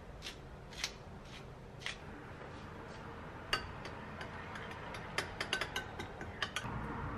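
Wooden pepper mill grinding, a crunching stroke about every half second for the first two seconds. Then a small utensil clinks against a small glass bowl: one sharp clink about three and a half seconds in, and a quick run of clinks near the end while the dressing is stirred.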